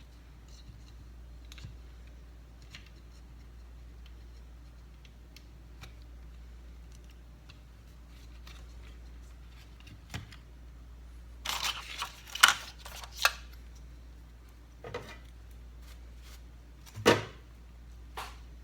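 Hands handling a MacBook Air A1466 and its power supply cable: scattered small clicks and clatter, with a burst of sharp clicks about twelve seconds in and another loud knock a few seconds later, over a steady low hum.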